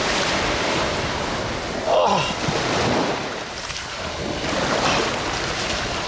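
Surf washing in and out at the water's edge, with wind buffeting the microphone.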